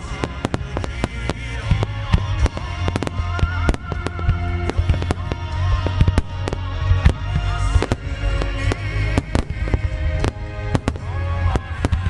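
Rapid, overlapping bursts of a fireworks starmine barrage, many shells exploding in quick succession over a deep rumble. Music plays through loudspeakers alongside.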